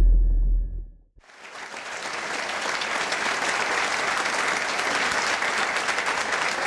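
A deep boom dies away over the first second. After a moment's silence, a congregation's applause fades in and carries on steadily.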